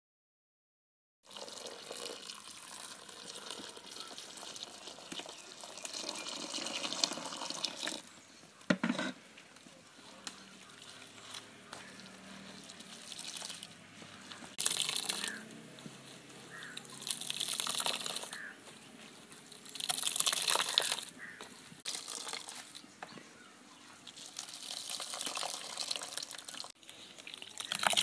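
Hands squeezing freshly grated coconut to press out coconut milk: wet squelching and liquid running into the bowl, swelling with each squeeze every few seconds.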